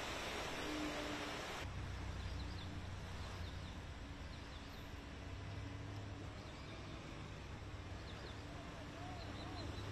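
A rush of splashing water from a vehicle pushing through a flooded street. It cuts off after about a second and a half to a quieter outdoor background: a low steady rumble with small birds chirping now and then.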